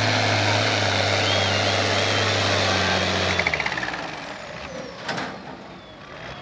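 International 1466's turbocharged six-cylinder diesel running hard under full load pulling the sled, then dropping away suddenly about three and a half seconds in as the pull ends. A single sharp knock comes about five seconds in.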